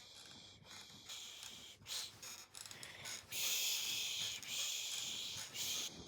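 Shushing as a baby sleep aid: breathy 'shh' hissing, two short shushes about a second in, then one long shush from about three seconds in until just before the end.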